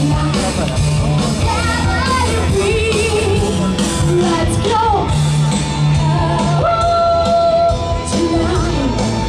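Rock song with a woman singing into a microphone, played loud over PA speakers, with a steady bass line and beat under the voice.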